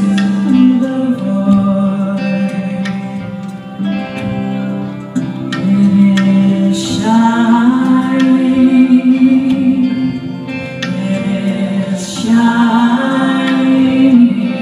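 Live acoustic ensemble music: voices singing a slow melody over acoustic guitar and other plucked strings.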